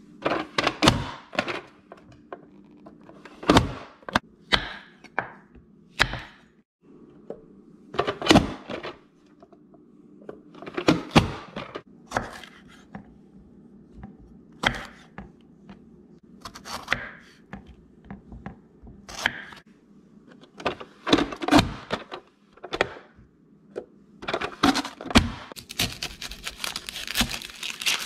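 Knife chopping vegetables on a wooden cutting board, a run of irregular sharp knocks that come thick and fast near the end. Near the start, a plastic vegetable chopper is pressed down through cucumber with thunks. A faint steady hum lies underneath.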